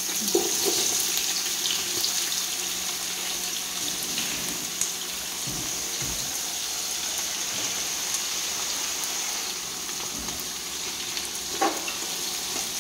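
Sliced onions frying in hot oil in a large pot: a steady sizzling hiss that eases a little over the seconds, with a few faint knocks.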